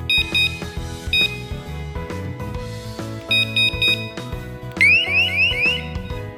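Electronic alarm tones over background music: short bursts of rapid beeps alternating between two high pitches, then near the end four quick rising whoops.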